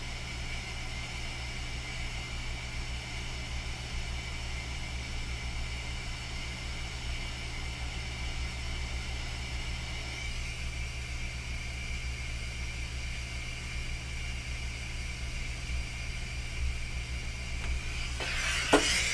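Hot air rework station blowing steadily, a fan whir and air hiss with a faint high whine that shifts slightly about halfway through, as it heats solder to reflow the replacement HDMI port.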